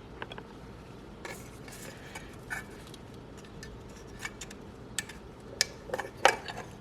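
Light clicks and clinks of small parts and hardware being handled and fitted by hand, scattered and irregular, with a few sharper clicks near the end.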